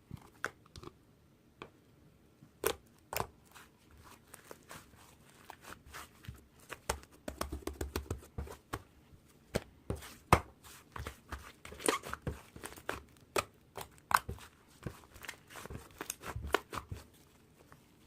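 Irregular clicks, taps and short rustling sounds of something being handled at close range, busiest in the middle stretch.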